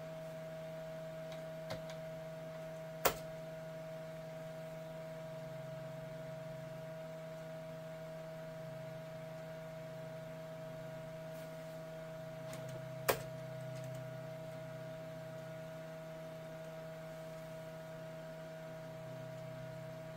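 Steady hum of a running Dell Dimension XPS T550 desktop computer, with a thin constant whine above it, while its Windows 98 recovery CD formats the hard drive. Two sharp clicks come about three and thirteen seconds in.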